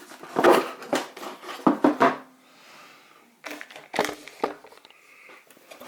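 Tablet packaging and papers being handled: crinkling and rustling with a string of sharp clicks and knocks, quieter for a moment about three seconds in.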